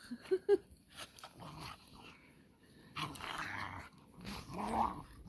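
Two beagles playing rough in deep snow: a few short yips near the start, then the rustle of their scuffling in the snow and a play growl near the end.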